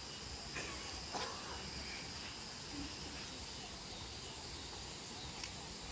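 Insects, cricket-like, chirring steadily over a faint even hiss, with a couple of faint clicks.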